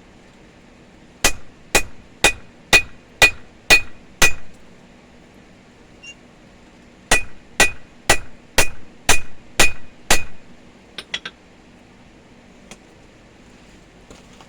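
Hand hammer striking hot steel on an anvil while forging a chisel end. There are two runs of seven blows, about two a second, each blow ringing briefly, with a pause of a few seconds between the runs, then a few light quick taps.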